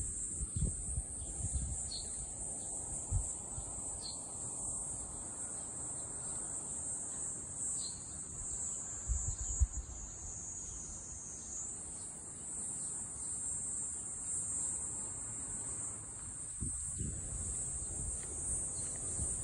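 A steady chorus of summer cicadas: a continuous high-pitched hiss, with irregular low rumbles and thumps from wind and handling underneath.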